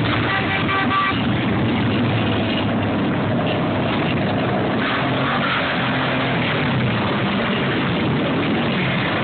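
A column of cruiser motorcycles riding past at low speed, their engines running together in a steady, loud drone.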